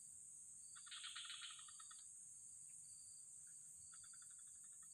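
Faint steady high-pitched insect drone, with a short rapid pulsed trill about a second in and a fainter one near the end.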